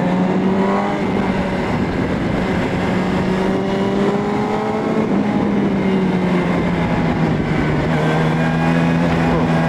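2004 Yamaha R1's inline-four engine running steadily under way, its pitch easing off and picking up gently with the throttle through the bends, over a rush of wind and road noise.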